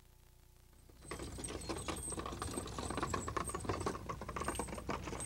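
A two-horse team pulling a wooden wagon: a dense, irregular clatter of hooves and rattling wagon that starts suddenly about a second in, after faint hum.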